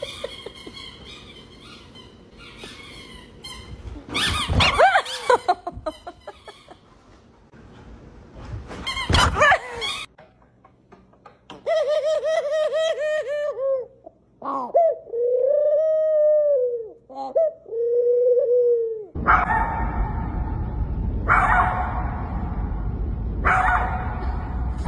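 A dove cooing: first a run of short wavering coos, then several long drawn-out coos, in the middle of the stretch. Before it come scattered short sounds, and after it a steady rushing noise.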